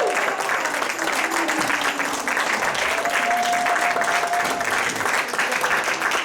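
Theater audience applauding at the curtain call, steady dense clapping with a voice or two calling out over it.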